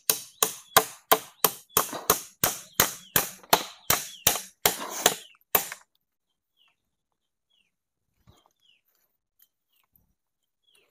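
A hammer driving a nail into wood: about nineteen quick, even strikes, roughly three a second, stopping after about five and a half seconds. Faint short chirps follow.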